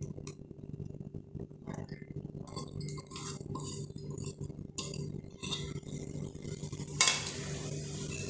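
Glass bowl clinking and scraping against a steel mixing bowl as wet coconut paste is scraped out into flour. The sound is a run of light taps and clinks, with one louder scrape about seven seconds in, over a steady low hum.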